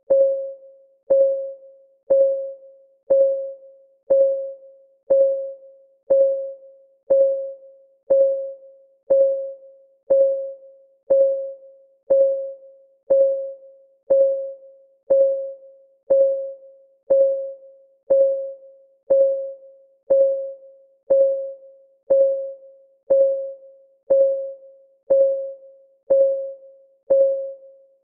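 Countdown timer's ticking sound: an even tick once a second, each a single clear pitched tone that strikes sharply and dies away quickly.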